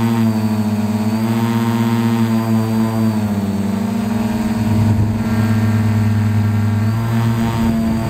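Carbon-frame quadcopter's motors and propellers running with a steady multi-toned hum, the pitch dipping and recovering about three and a half seconds in and shifting again near seven seconds.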